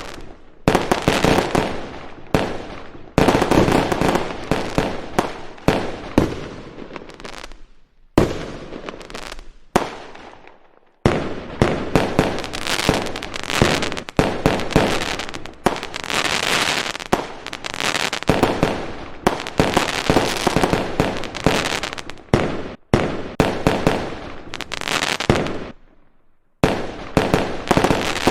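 Fireworks going off in rapid, overlapping bangs with crackle, coming in several stretches that cut off abruptly and restart, as in edited-together clips.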